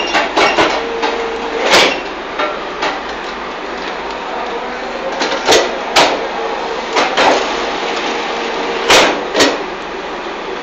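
High-pressure hydraulic fly ash brick making machine running: a steady hum with sharp metallic knocks that come in pairs about half a second apart, repeating every three to four seconds.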